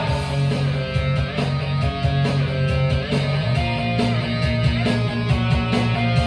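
Guitar-driven rock music playing an instrumental passage, with guitar and a steady drum beat and no vocals.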